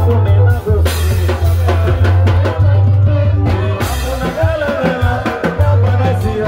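Live band music with a loud bass line and conga drums struck by hand, and a man singing into a microphone over it.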